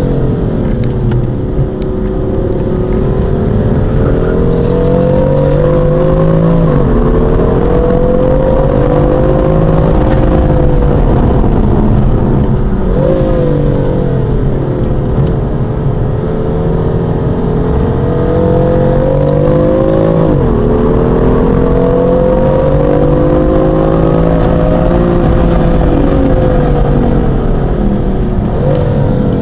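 BMW M4's twin-turbo straight-six engine under load on track, heard from inside the cabin. The revs rise and fall through the corners, with a sudden jump in pitch about every six to seven seconds.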